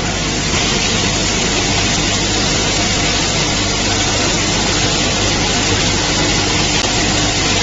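Automatic chips packing machine's feeder running, with product pouring across the feed tray: a loud, even hiss over a steady low hum.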